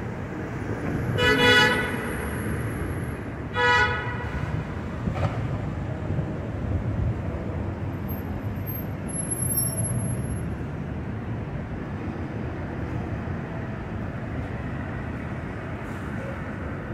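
A vehicle horn honks twice, the first time for nearly a second and the second time shorter, about two seconds later, over steady city street traffic.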